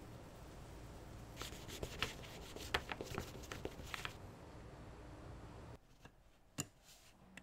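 Scratchy rubbing and ticking of a sanding sponge worked over dried filler on a small diecast car panel, in quick irregular strokes that stop about four seconds in. A single sharp click near the end.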